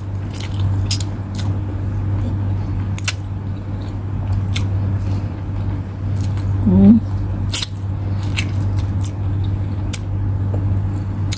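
Close-up mouth sounds of a person eating rice and chicken adobo by hand: chewing with scattered wet clicks and lip smacks over a steady low hum. A short hummed "mm" from the voice comes just past halfway.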